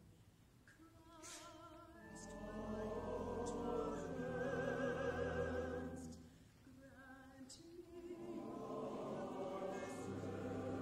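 Live classical choral music with orchestra: a singer with a wide vibrato over choir and sustained low notes. It starts quietly, swells, drops away briefly past the middle, then builds again toward the end.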